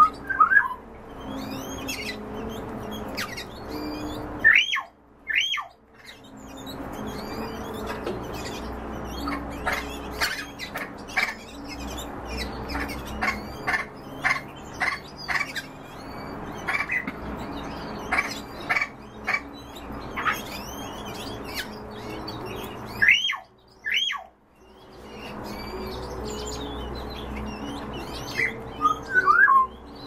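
Caged bird calling: a few loud squawks that drop in pitch, with many short, quick chirps between them.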